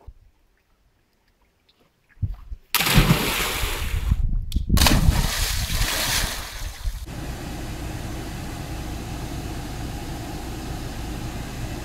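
Seawater splashing loudly as someone plunges into the sea from the rocks, followed by a steadier rushing noise.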